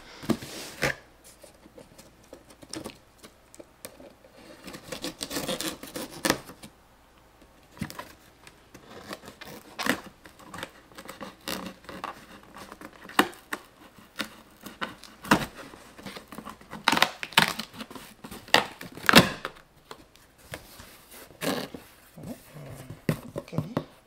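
A cardboard shipping box being opened by hand: tape and cardboard tearing, with packaging rustling and scattered knocks and clicks as it is handled.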